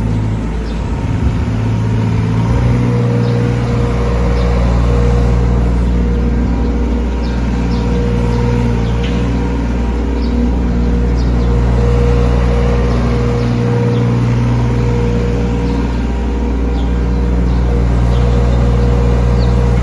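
Hitachi ZX30UR-2 mini excavator running and working, its diesel engine humming steadily with a steady whine over it and light ticks. The engine note dips briefly near the start and again about two-thirds of the way through.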